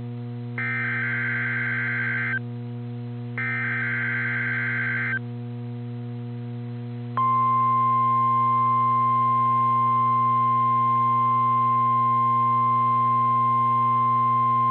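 NOAA Weather Radio Required Weekly Test signal: two bursts of the SAME digital header, each a harsh warbling data sound about 2 s long, then after a short pause the steady 1050 Hz Warning Alarm Tone, which starts about 7 s in and holds unbroken. A steady low hum runs underneath throughout.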